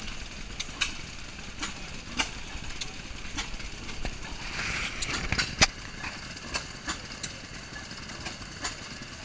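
Large twin-flywheel stationary engine running slowly while driving a water pump, with sharp clicks or knocks coming irregularly, about one or two a second, over a low rumble; the loudest knock comes a little past halfway.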